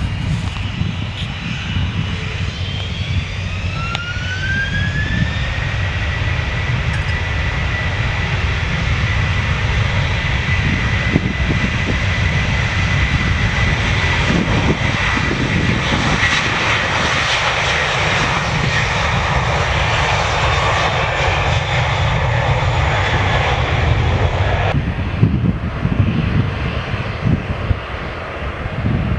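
Jet airliner engines running at high power with a loud rumble; a few seconds in, a whine rises in pitch and then holds steady, as the engines spool up. The whine and hiss fall away near the end.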